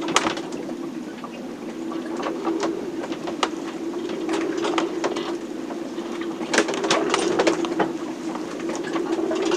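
Sailboat cabin in a storm: a steady low drone with irregular clicks and knocks from the boat, a sharp knock right at the start and a cluster of knocks about six to seven seconds in.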